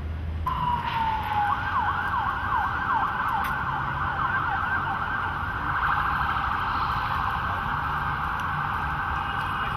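An emergency vehicle siren comes on about half a second in with a falling tone, then switches to a fast yelp, sweeping up and down about four times a second.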